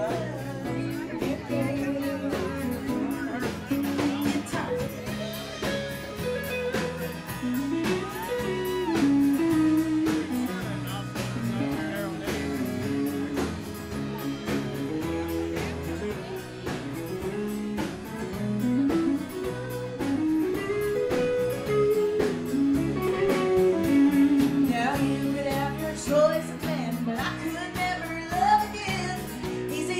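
Live country band playing in a bar: electric and acoustic guitars over a drum beat, with a melody line rising and falling over the accompaniment.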